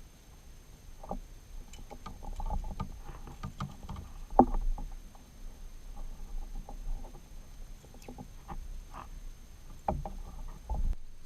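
Irregular knocks, taps and clicks of gear on a kayak while a snook is fought and handled, with a sharp loud knock about four seconds in and another cluster near the end.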